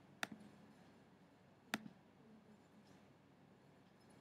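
Two sharp computer clicks about a second and a half apart, each with a small second tick, against near silence.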